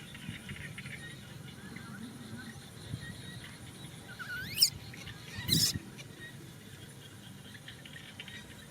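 Baby monkey squealing: a short, high squeal that rises and falls about four and a half seconds in, then a harsher shriek about a second later, over faint bird and insect chirps.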